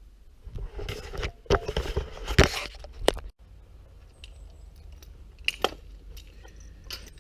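Metal climbing hardware (carabiners and fittings on a tree climber's belt) clinking and jangling as it is handled. There is a busy clatter over the first three seconds, then scattered single clinks.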